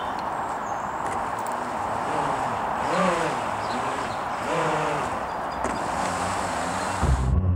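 Electric jet drive of a DIY jet kayak running as it pulls away across the water, a steady rush with a pitch that rises and falls twice as the throttle changes. Near the end it switches suddenly to a loud low rumble.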